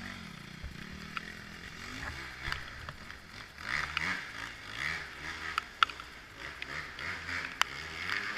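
Two-stroke dirt bike engine revving up and falling back again and again as it is ridden over a rough, muddy trail, with several sharp clicks and knocks.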